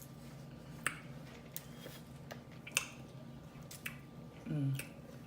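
Close-up messy eating of a seafood boil: scattered wet smacks and sharp clicks, about six over the few seconds, with a short 'mm' hum about four and a half seconds in.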